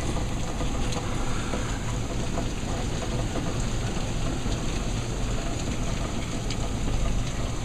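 Hail and heavy rain pelting down in a steady hiss, with scattered small ticks of hailstones striking.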